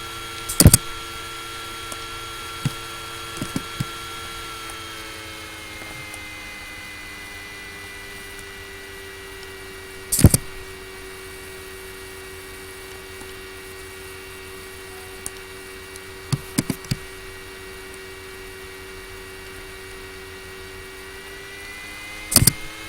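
Laptop cooling fan whirring steadily, its pitch dropping about five seconds in and rising again near the end. Three loud sharp clicks, one near the start, one about halfway and one near the end, with a few fainter ticks between.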